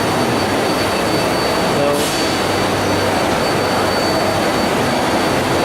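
Steady din of a machine-tool exhibition hall, with a thin high whine running through it and a sharp click about two seconds in.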